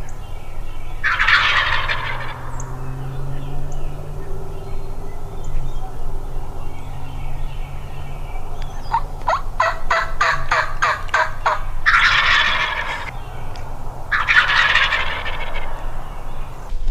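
Wild turkey gobbling: three loud rattling gobbles, one about a second in and two close together near the end. In between comes a quick, even run of about a dozen short, sharp clucking notes, roughly four a second.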